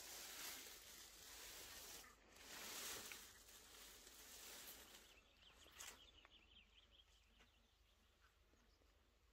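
Pea vines and leaves rustling as a hand brushes and pushes through the foliage, in two surges over the first five seconds, then fading to faint.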